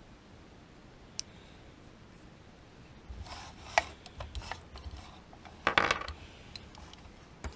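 A steel carabiner and a plastic anchor reel being handled on a wooden workbench: a faint click, then scattered clicks and rattles from about three seconds in, with the loudest metallic clatter about six seconds in as the carabiner lands on the wood.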